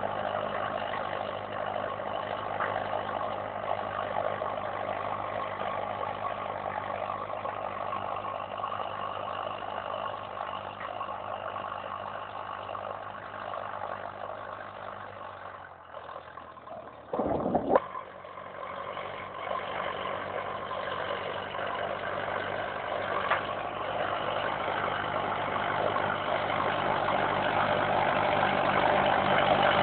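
Diesel tractor engine running steadily under load as it pulls a duckfoot cultivator through the soil, growing fainter as it moves off and louder again as it comes back. A short loud thump about seventeen seconds in.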